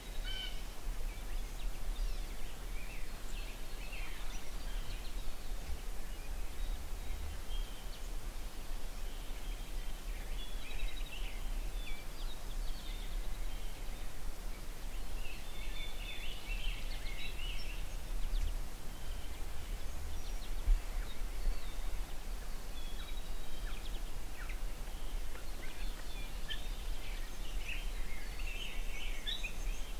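Low, steady wind rumble on the microphone, with scattered faint bird calls a few seconds in, around the middle and near the end.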